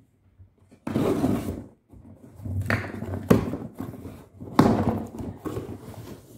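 Cardboard shipping box being opened by hand: packing tape tearing and cardboard flaps scraping in several noisy bursts, with a couple of sharp knocks of the box near the middle.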